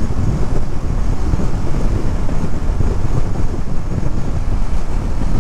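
Wind buffeting the helmet or camera microphone on a Ducati Monster motorcycle at highway speed, a loud steady low rumble with the bike's running noise mixed in.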